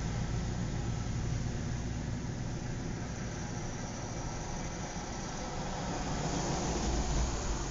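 Outdoor suburban ambience: a steady rumble of road traffic, swelling near the end as a vehicle draws closer.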